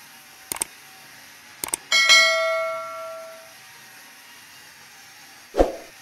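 Steel sawmill machinery clanging: a couple of light double clicks, then one loud metallic clang that rings for about a second and a half. A dull thump follows near the end.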